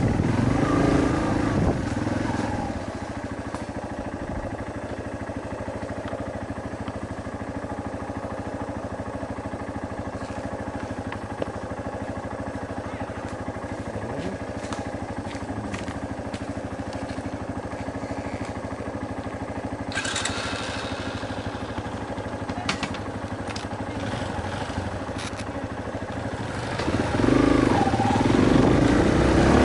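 Yamaha Serow trail bike's single-cylinder four-stroke engine. It runs louder at first, then settles after a couple of seconds into a steady, quieter note of constant pitch for most of the time. Near the end it grows louder again.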